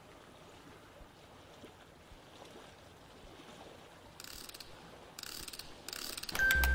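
Faint hiss, then from about four seconds in, three short crunches about a second apart: footsteps on dry leaf litter. Near the end, music comes in with a deep bass and a high chiming note.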